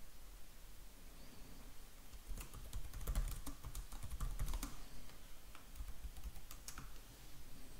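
Typing on a computer keyboard: a quick run of keystrokes about two seconds in, then a few scattered key presses.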